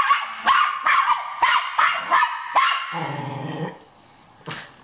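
Cairn terrier barking excitedly, about eight sharp barks in quick succession, then a low growl about three seconds in and a single bark near the end.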